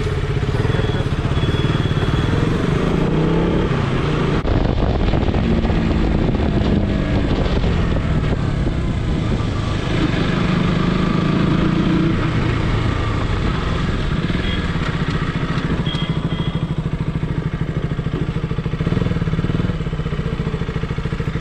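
Motorcycle engine running while ridden, its pitch rising and falling with the throttle and gear changes.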